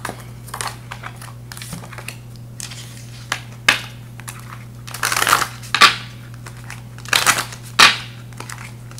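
A deck of round card-stock oracle cards being shuffled by hand and a card laid on the table: a run of short papery swishes and slaps, the loudest bunched in the second half.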